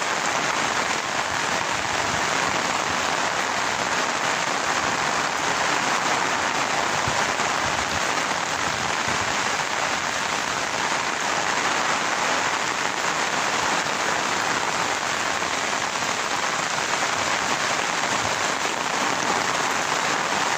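Steady rain falling on waterlogged grass and standing water in a flooded field, an even hiss with no change in strength.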